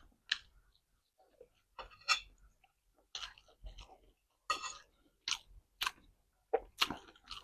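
A person chewing food close to the microphone, in irregular short bursts about every half second to a second.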